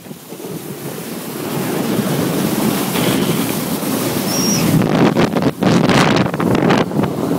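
Snow tube sliding fast down a packed-snow hill: a rushing of wind over the microphone and snow hissing under the tube, building over the first couple of seconds. From about five seconds in it turns rougher, with a run of jolts as the tube bumps along.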